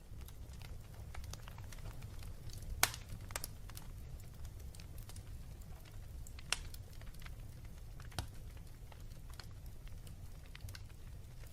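Wood fire burning in a fireplace: scattered sharp crackles and pops from the logs, the loudest about three seconds in, over a steady low rumble of the flames.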